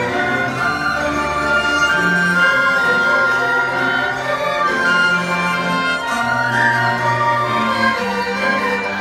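Chinese traditional orchestra playing a concerto for soprano sheng (gaosheng), with long held notes over bowed huqin and string accompaniment.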